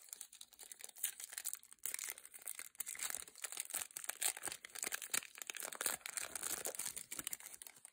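Foil wrapper of a Topps trading-card pack being torn open and crinkled by hand: a dense crackling full of small snaps that goes on throughout.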